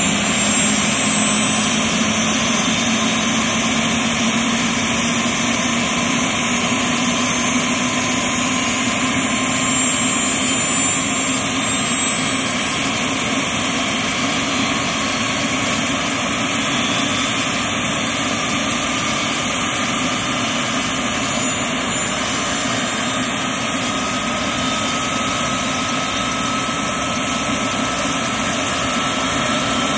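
Bell 206B-3 JetRanger helicopters' turbine engines running on the ground with rotors turning: a steady high turbine whine over a lower hum.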